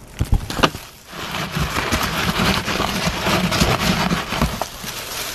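Hands rustling through shredded paper packing filler in a cardboard box: a couple of knocks in the first second, then continuous crackly rustling from about a second in.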